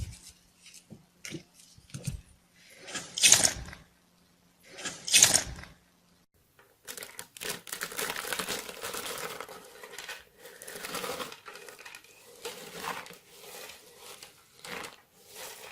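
Slime being squeezed and stretched by hand, with short squishy bursts and two louder squelches about three and five seconds in. Then a steady run of fine crackling and popping.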